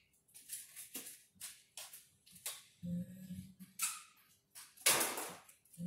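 Scattered knocks, clicks and rustles of someone moving about a workshop, hunting out a tape measure, with a louder rushing noise about five seconds in.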